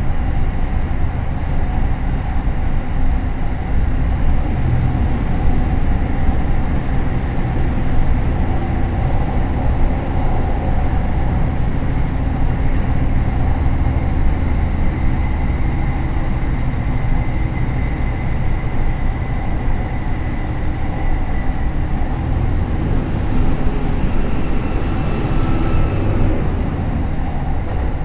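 Onboard sound of an ET122 diesel railcar's Komatsu SA6D140HE-2 turbo diesel and DW21 transmission, with steady rumble of wheels on rail and a faint gear whine, as the railcar slows with the exhaust brake working from a few seconds in. Near the end the transmission drops from fourth to third direct gear.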